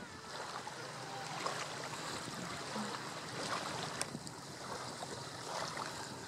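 Kayak paddle blades splashing and sloshing on the water in low bracing strokes, with light lapping of water around the hull. A single sharp tick about four seconds in.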